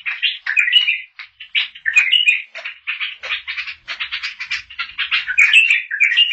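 Bulbul singing a continuous run of rapid chattering and warbling notes.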